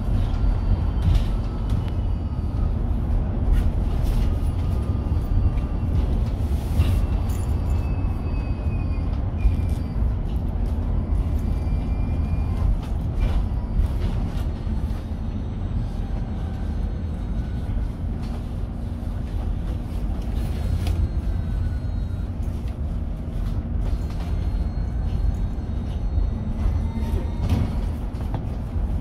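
Inside a Mercedes-Benz eCitaro battery-electric bus on the move: steady low road and tyre rumble, with the faint whine of the electric drive sliding slowly down in pitch early on and rising again near the end, and scattered light rattles and clicks from the cabin.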